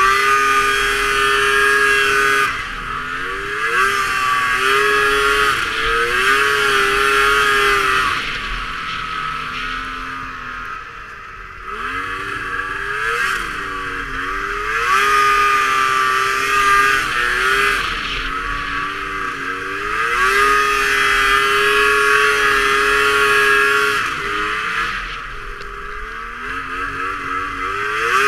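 Snowmobile engine running hard through powder snow, its pitch repeatedly rising and falling with the throttle. It eases off for a couple of seconds about ten seconds in and again about twenty-five seconds in.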